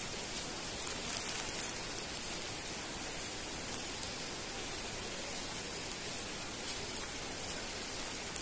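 Steady, even hiss of rushing water from the stream and falls.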